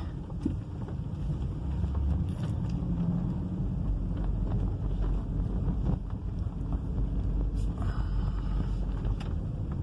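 Audi A3 driving over a rough, potholed street, heard from inside the cabin: steady low road and engine noise with a few light knocks from the tyres. The front suspension makes no metal-on-metal clunk now that a stripped lower control-arm bolt has been replaced.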